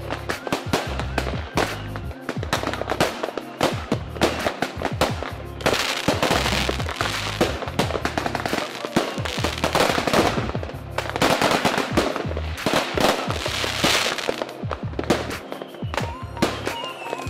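Aerial fireworks display: a rapid run of bangs and crackling from many shells bursting close together, thickening into a dense crackle in the middle. Several short falling whistles near the end.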